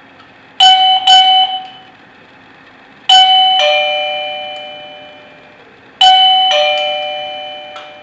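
Electronic wireless door chime sounding: two short notes at the same pitch, then two ding-dong chimes about three seconds apart. In each ding-dong a higher note is followed by a lower one, and both ring on, fading slowly.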